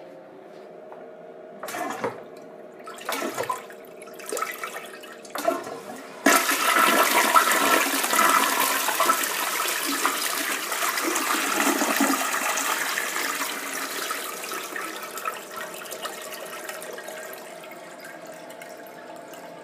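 A 2002 Crane Plumbing Galaxy toilet flushing with its lever held down, because its flapper is broken. A few short knocks come first, then about six seconds in a sudden loud rush of water that runs for several seconds and tapers off to a quieter steady hiss.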